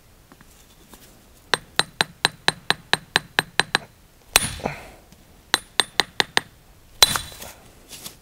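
Hammer striking a chisel held on a small paving sett: about ten quick, light, ringing metal taps, a heavier blow, then four more taps and a final heavy blow, the loudest. This is a sett being split along a marked line.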